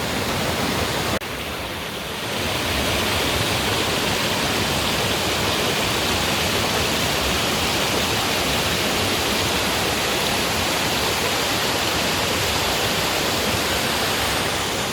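Steady noise of a tall waterfall, about 50 m of falling water. It breaks off sharply about a second in, comes back a little quieter, and grows louder again from about two seconds in.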